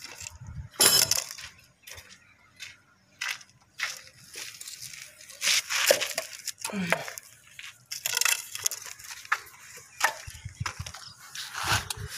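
Irregular knocks, scrapes and clinks of PVC pipe pieces, plastic fittings and a small tin being picked up and set down on a gritty floor.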